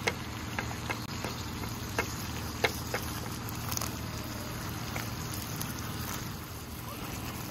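A steady low hum with scattered light clicks and ticks.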